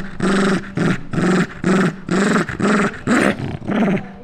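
Small long-haired dog growling in short repeated bursts, about two a second, while gripping a furry plush toy in its mouth. It is a toy-guarding growl as a hand reaches for the toy.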